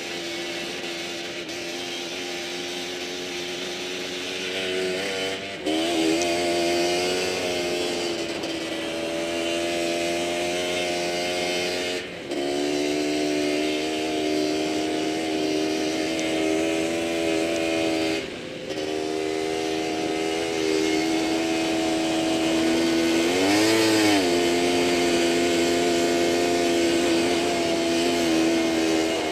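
Quad (ATV) engine running under load while riding over sand, dropping off briefly three times and giving a quick rise and fall in revs about three-quarters of the way through. A constant rush of wind on the microphone runs over it.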